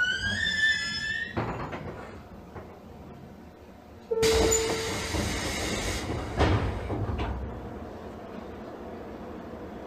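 A short melody ends about a second in. About four seconds in, the JR Kyushu 813-series train's sliding doors work: a short beep, a burst of air hiss from the door engines, then a thud as they close about two seconds later. After that the stopped train hums steadily.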